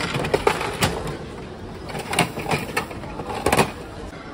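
Gachapon capsule-toy machine's dial being turned, a run of sharp ratchet clicks, followed by a few knocks and a louder clatter of the plastic capsule about three and a half seconds in as it is dispensed and taken out.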